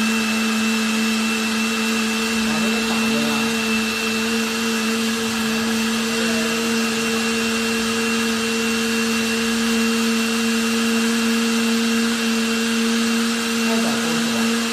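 Countertop blender with a stainless-steel motor base running steadily, blending carrots into a smooth orange purée. The motor gives a constant whine that holds one pitch without change.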